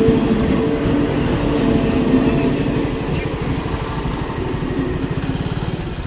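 Electric local train (EMU) running past at a level crossing, its coaches rolling by steadily with a humming tone, the sound easing off as the last coach passes near the end. A motorcycle engine idles close by, its low putter clearer as the train fades.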